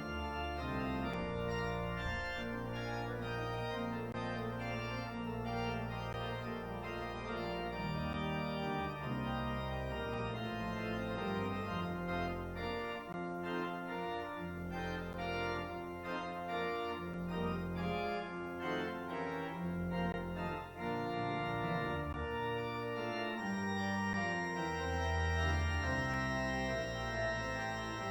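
Church organ playing the postlude that closes the service: sustained chords changing every second or so over deep bass notes.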